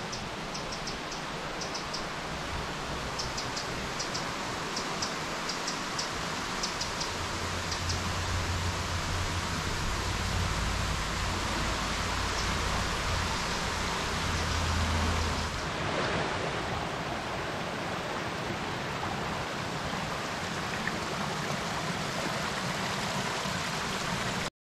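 Steady rush of a rocky woodland stream, Burbage Brook, cascading in Padley Gorge, with a few faint high ticks early on and a low rumble swelling through the middle.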